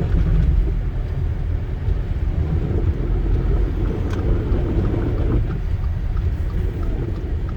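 Car driving on snow-covered roads, heard from inside the cabin: a steady low rumble of engine and road noise.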